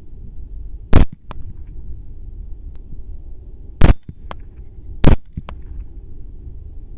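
Three rifle shots at feral hogs, about a second in, near four seconds and about five seconds in, each followed a few tenths of a second later by a fainter second crack. A steady low rumble runs underneath.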